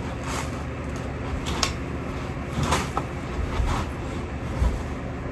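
Steady low room hum with a few faint rustles and clicks, and two soft thumps about three and a half and four and a half seconds in, from someone moving about.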